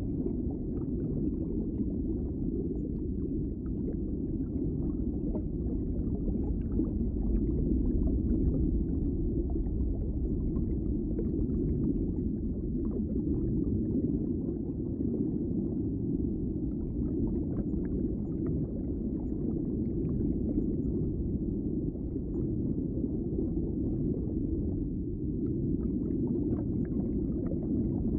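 Underwater ambience: a steady, deep, muffled rumble of water with faint light crackling over it.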